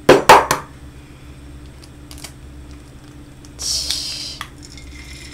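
An egg knocked twice sharply against the edge of a frying pan to crack it, then about three and a half seconds in a brief loud sizzle as the egg drops into the hot oil, settling to a quieter steady sizzle near the end.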